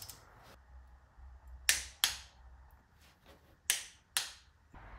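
Click-type torque wrench set to 15 Nm clicking as it reaches its set torque on newly fitted diesel glow plugs. There are four sharp clicks in two pairs, about two seconds apart.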